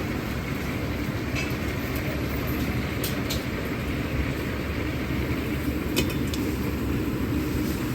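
Steady roar of a commercial Chinese kitchen's gas burners and extraction hood, with a few light clicks of utensils.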